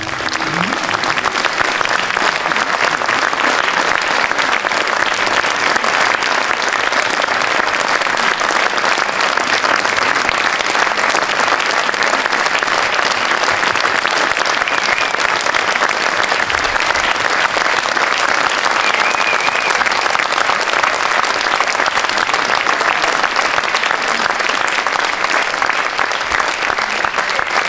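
Theatre audience applauding: dense, steady clapping that keeps up at an even level throughout.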